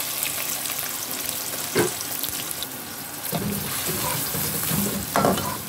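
Freshly sliced red onions sizzling in hot oil in a cooking pot as they start to fry, a steady hiss. Two brief louder sounds break in, about two seconds in and near the end.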